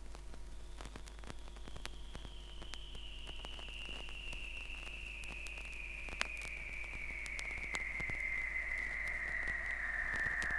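Vinyl record playing, with surface hiss and scattered crackles and pops over a steady low hum. The track's opening is a single high tone that slowly slides down in pitch and grows louder.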